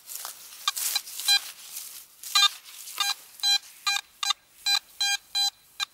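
Metal detector sounding its target tone: a run of short, pitched beeps, about three a second, starting about two seconds in as the coil is swept back and forth over a buried target, after a few soft rustles of the coil brushing the grass. The signal reads 58–65, a reading the detectorist says normally means aluminium, a pull-tab or a coin.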